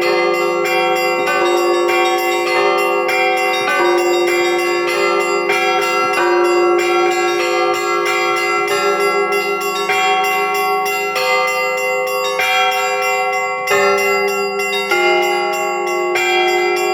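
Russian Orthodox church bells rung by hand by a bell ringer: rapid, rhythmic strikes of several bells at different pitches, their tones overlapping and ringing on without a pause.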